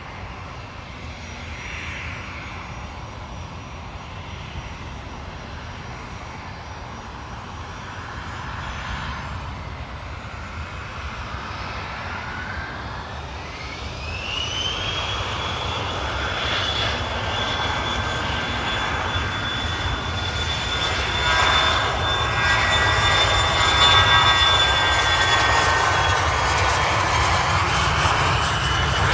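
Aircraft turbine engines running, their whine rising in pitch about halfway through as they spool up, then holding steady and high while the sound grows louder toward the end.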